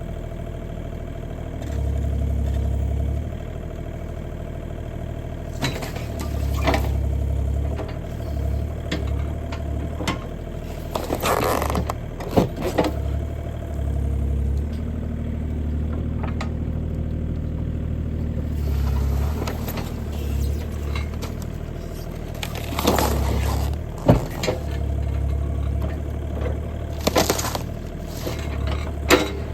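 Bobcat E35 mini excavator's diesel engine running, repeatedly working harder for a few seconds at a time as the hydraulics push. Scattered sharp knocks and crunches come from the cardboard box being crushed under the bucket and thumb, with a longer crackling crunch about eleven seconds in.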